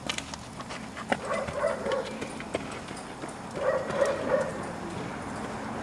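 An animal's voice: two stretches of drawn-out calls, with a few sharp clicks or knocks in between.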